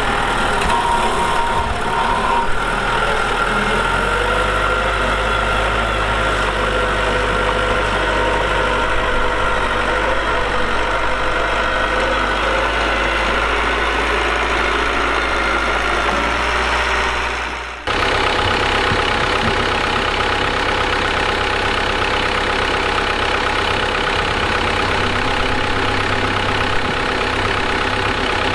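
Diesel engine of heavy road-construction machinery running steadily. About two-thirds of the way through the sound dips briefly, then jumps abruptly to a different steady engine sound.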